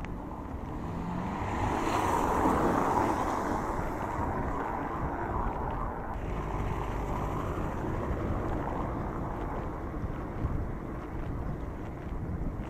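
Wind rushing over an action camera's microphone on a moving road bike, over a low rumble from the tyres on paving stones. The noise swells briefly about two seconds in.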